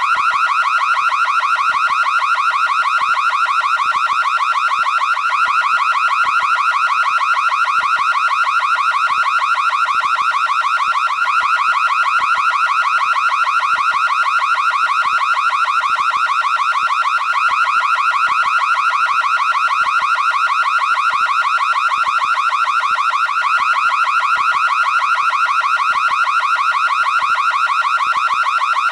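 Anti-theft alarm sounding continuously: a loud electronic tone with a rapid, unbroken warble that repeats without pause.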